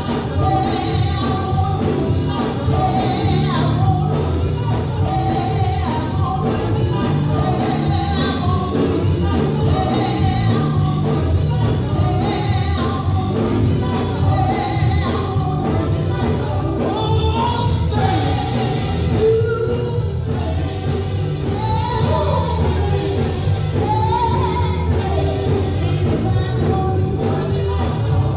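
Live gospel music: a woman singing lead into a microphone over backing singers and a band with a steady bass line.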